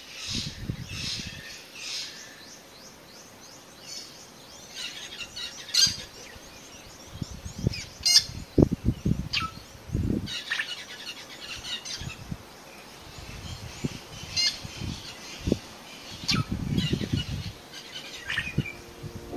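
Short, high-pitched chirps repeated at irregular intervals, some as quick falling sweeps and trills, over irregular low rumbling bursts.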